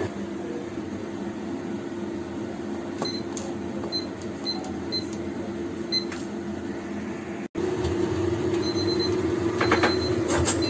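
Short high electronic beeps from a digital kitchen timer over a steady hum: a few single beeps as its buttons are pressed to set three minutes, then, after a break, repeated quick beeps as the timer goes off at three minutes.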